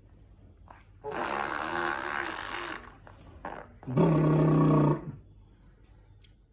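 A person's voice making rough, wordless noises: a rasping sound for about two seconds, then a short flat-pitched growl about four seconds in.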